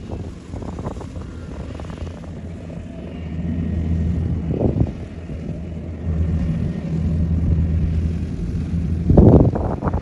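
Kubota DC-93 combine harvester's diesel engine running steadily while harvesting rice: a low hum that swells louder twice. A brief, loud rush of noise near the end.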